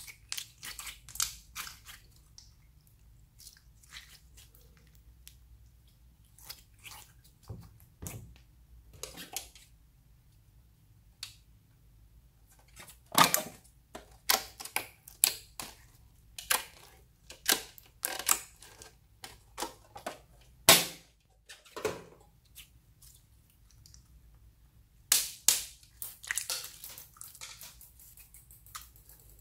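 Slime being squeezed, pulled and handled, making irregular sticky pops and clicks, sparse at first, then coming thicker and louder from about the middle on.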